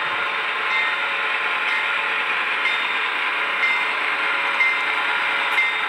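Broadway Limited GE AC6000CW model diesel locomotives running, their onboard sound decoders playing diesel engine sound through small speakers over the rumble of the train on the track, with a short tick about once a second.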